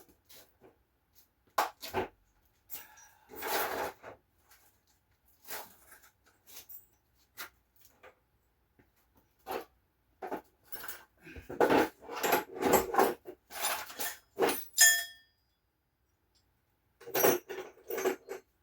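Metal hand tools clinking and clattering as they are rummaged through and handled, in irregular clusters, with one piece ringing briefly about fifteen seconds in.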